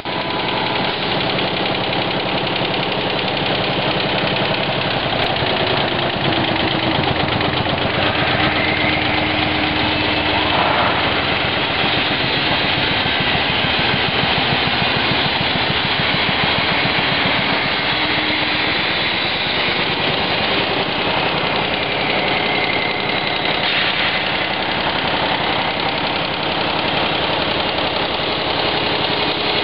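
ZHAO multi-head computer embroidery machine running, its needle heads stitching in a fast, steady mechanical clatter with a running motor hum underneath.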